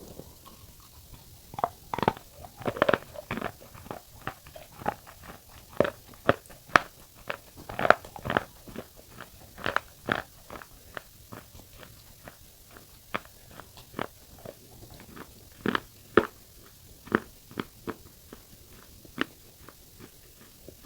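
Biting and chewing chips of black shale stone close to the microphone: a run of sharp, dry crunches at an irregular pace, roughly one to three a second.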